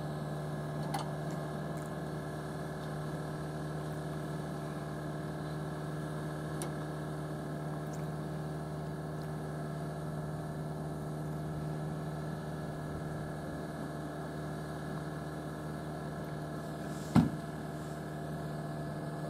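A vehicle engine idling with a steady, unchanging hum, with one short knock about seventeen seconds in.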